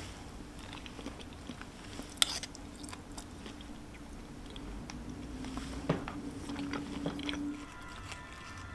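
Close-up eating sounds: chewing salmon and rice, with a wooden spoon and chopsticks clicking and scraping against a wooden bento box. A sharp click about two seconds in is the loudest, and a faint steady hum sits underneath until near the end.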